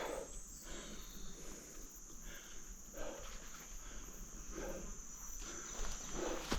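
Steady high-pitched insect trill from the surrounding woods, with a few soft footsteps on the ground about every second and a half.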